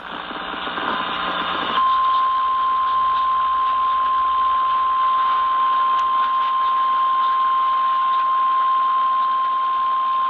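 Emergency Alert System attention tone: about a second and a half of radio hiss, then one steady, single-pitch alert tone held over the hiss. It signals the start of an Amber Alert, a child abduction emergency.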